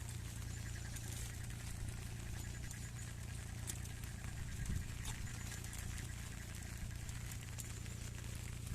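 Outdoor ambience in light rain: scattered drops pattering over a steady low rumble, with a faint high trill around the first few seconds.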